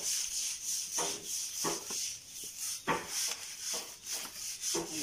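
Rhythmic scraping of a wooden paddle stirring a large pan of refrying black beans, at about three strokes a second.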